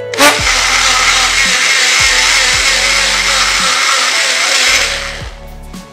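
Electric mixer-grinder running at full speed, blending curd, water, spices and mint leaves into buttermilk: the motor starts abruptly, runs steadily for about four and a half seconds, then winds down. Soft background music plays underneath.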